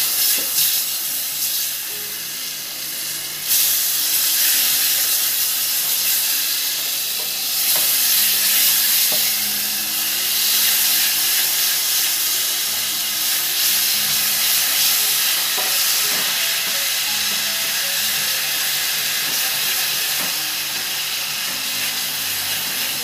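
Pieces of marinated pork shoulder sizzling in hot melted sugar caramel in a stainless steel pot, the hiss jumping up sharply about three and a half seconds in as the meat goes into the caramel. Chopsticks scrape and tap against the pot now and then as the meat is stirred.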